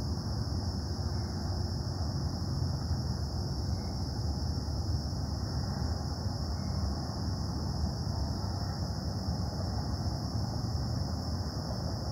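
Steady, unbroken low rumble of industrial machinery from the Casting Solutions metal-casting plant, with a constant high-pitched hiss above it.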